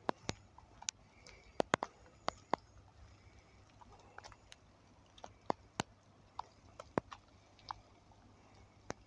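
Irregular sharp taps and clicks close to the microphone, a dozen or so scattered unevenly, over a low steady hum.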